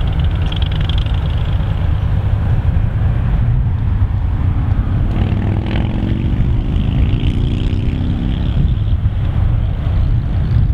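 Steady low rumbling wind noise on the microphone, with a vehicle passing about halfway through, its engine pitch sliding slowly down.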